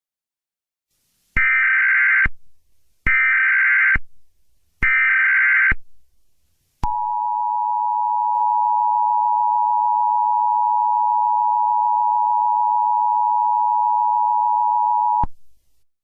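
Emergency Alert System signal: three short bursts of SAME header data tones, each about a second long, then the steady two-tone EAS attention signal held for about eight seconds and cut off sharply, announcing that an emergency alert message follows.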